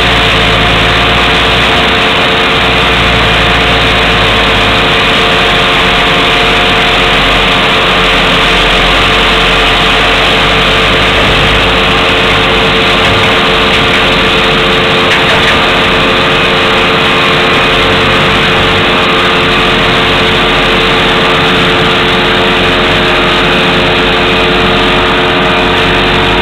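Tractor-driven mobile maize-grinding mill running at full work alongside tractor engines: a loud, unbroken machine noise holding several constant pitches, with the low engine rumble swelling and fading as the loader moves.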